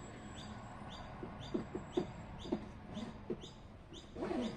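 A bird calling with repeated short, high chirps that fall in pitch, about two to three a second, with a few soft low clucks in between and a louder call near the end.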